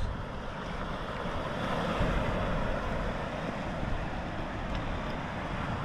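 Steady wash of sea surf on a rocky shore, with wind rumbling on the microphone.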